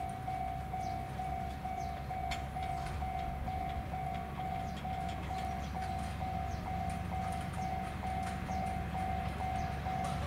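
Ex-JNR KiHa 30 and KiHa 37 diesel railcars approaching, their engines a steady low rumble. Over it a level-crossing warning bell rings evenly, about three times a second.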